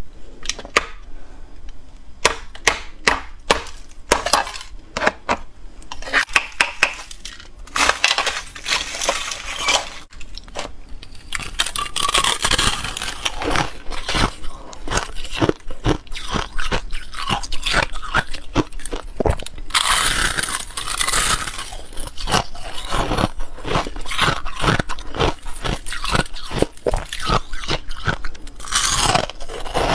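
A hard-frozen ball of ice struck with a series of sharp knocks and cracked open, then crackling and crunching as its shell and feathery ice crystals are broken apart and bitten.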